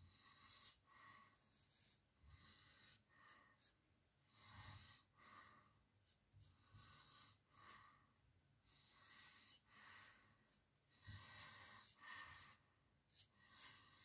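Faint, short scraping strokes of a safety razor blade cutting lathered stubble, coming about one or two a second with brief pauses between runs.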